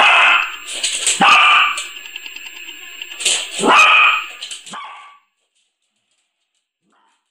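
Small dog barking, about five sharp, high-pitched barks in quick succession; the sound cuts off about five seconds in.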